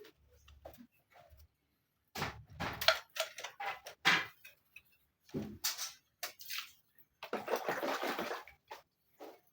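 Water splashing and pouring in several irregular bursts, the longest about seven seconds in.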